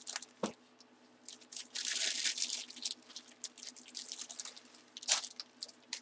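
Trading cards and their packaging being handled by hand: irregular rustling and crinkling with light clicks, the longest crinkle about two seconds in.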